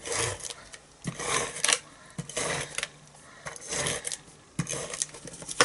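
Cardstock being handled and glued on a craft mat: bursts of paper rustling and rubbing, with a few sharp taps.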